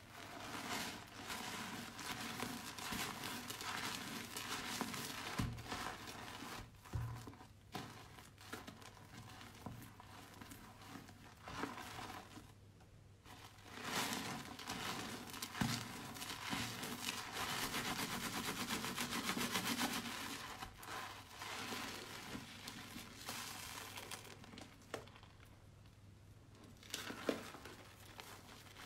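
Soaked, mushy soap and foam being squeezed and kneaded by hand, a wet crackling squish that comes in waves, with short lulls about halfway through and again near the end.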